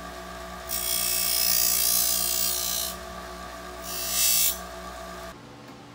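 Bench grinder running with a steady motor hum while a small metal part, likely aluminum, is pressed against the wheel: a hissing grind for about two seconds, then a second shorter touch of about half a second. The sound cuts off abruptly about five seconds in.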